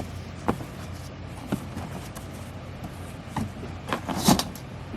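Folded steel bandsaw blades being handled and set into a shipping box: scattered light taps and clicks, the loudest near the end, over a steady low hum.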